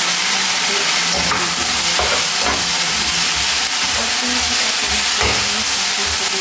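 Sliced celery, onion and chicken sizzling in a nonstick frying pan as a slotted spatula stirs them, with a steady frying hiss and the spatula scraping and knocking against the pan several times.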